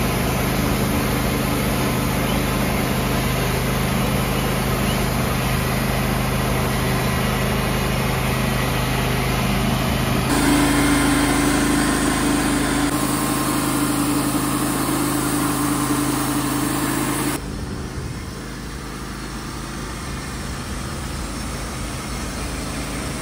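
Wood-Mizer LT35 portable band sawmill running steadily, its engine humming as the band blade saws a southern yellow pine log. The sound changes abruptly about ten seconds in, and drops to a quieter steady hum about seventeen seconds in.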